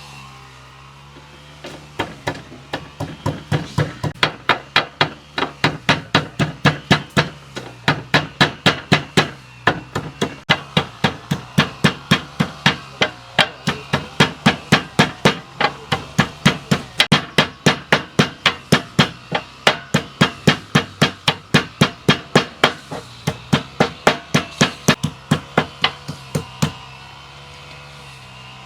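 Rapid, steady chopping: a knife or cleaver striking a wooden cutting board about three times a second. It starts about two seconds in and stops a couple of seconds before the end.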